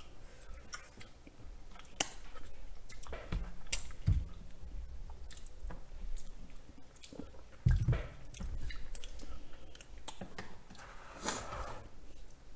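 Close-miked chewing of a creamy braised chicken dish, with scattered small clicks and a couple of low thumps.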